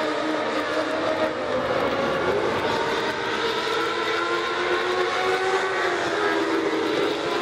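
Several motorcycle-engined Legends race cars running at racing speed around an oval, with no pauses. Their engines sound at several different pitches at once, each slowly rising and falling as the cars circle the track.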